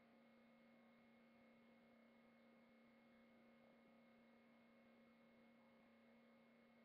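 Near silence: a faint steady electrical hum with a few constant tones over low hiss, unchanging throughout.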